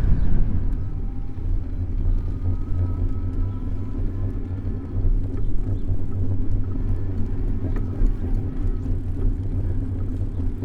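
Steady low rumble of road and traffic noise picked up by a camera mounted on a moving bicycle in city streets, with a faint thin whine between about one and five seconds in.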